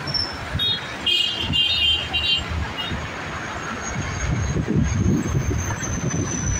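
Wind buffeting the microphone with an uneven low rumble, while a Dash 8 turboprop airliner on approach gives a thin high whine that comes in about halfway through and slowly drops in pitch as it passes.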